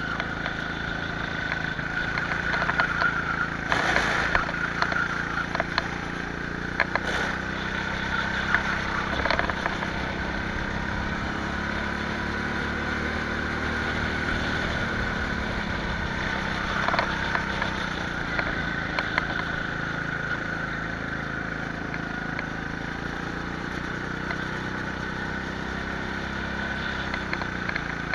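Go-kart engine running continuously, its pitch rising and falling as the kart speeds up and slows through the lap, with a few short knocks.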